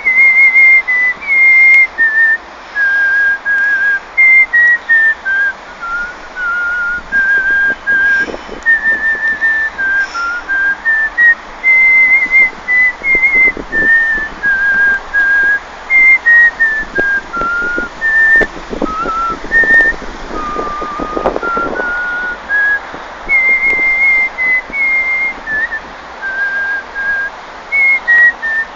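A man whistling a tune with his lips: clear, high, held notes that step up and down, with a slight warble on some of them.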